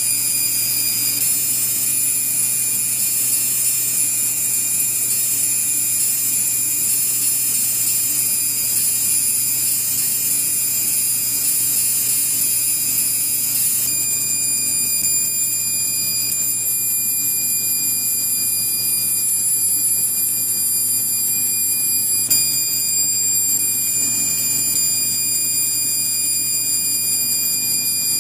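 20 W fiber laser marking machine engraving barcodes into plastic ear tags: a steady, shrill, high-pitched electronic whine made of several tones, over a low hum. For roughly the first half it carries a fast stuttering chatter, which gives way to a smoother whine when the laser moves on to the next tag.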